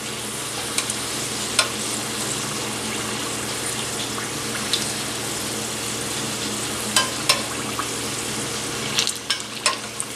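Canola oil at about 375°F sizzling steadily around wonton-wrapped rolls as they deep-fry in an enamelled pot. Scattered sharp clicks of a metal slotted spatula against the pot as the rolls are moved around, a few near the end.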